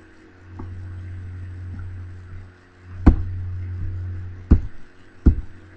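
Three sharp clicks, about three, four and a half and five seconds in, from a computer mouse advancing the slides, over a steady low electrical hum.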